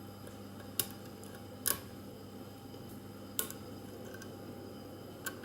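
A thin 0.018-inch lock pick working inside a standard 50 mm padlock: a few light, sharp metallic clicks spaced about a second apart, over a faint steady hum.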